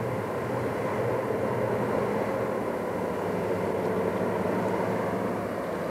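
Lash-up of EMD F9 diesel-electric locomotives working as the train approaches at a distance: a steady engine drone with a low, even engine note that shifts slightly partway through.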